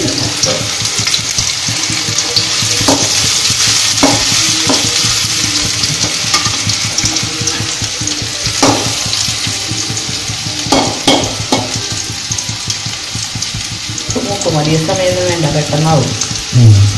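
Sliced shallots sizzling steadily as they fry in coconut oil in an aluminium wok for a curry tempering, with a steel ladle stirring them and knocking against the pan a few times. Near the end a short pitched sound with a wavering pitch comes in over the sizzle.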